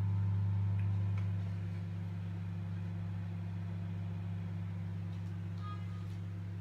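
Microwave oven running with a steady low hum while it heats a bowl of clams in their shells. The hum is louder for the first second or so, then settles. A short ringing clink comes near the end.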